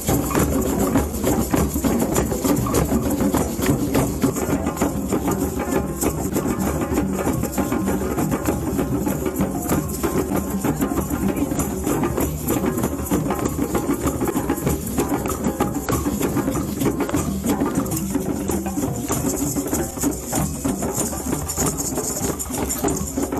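Drums and other hand percussion playing a dense, continuous rhythm.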